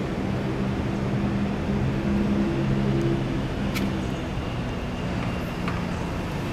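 A motor-vehicle engine drones steadily with a low hum that swells a little about two seconds in, with a few faint clicks over it.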